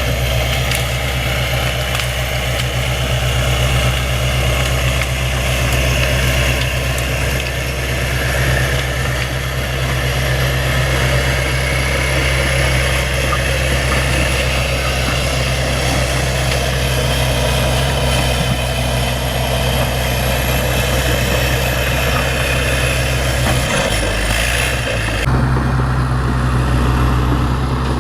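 Bulldozer's diesel engine running steadily, with an abrupt shift in the sound about 24 seconds in.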